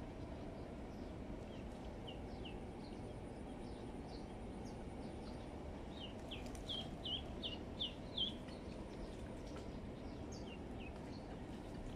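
A duckling peeping: repeated short, high, falling peeps, a run of louder ones in the middle, over a steady low outdoor background noise.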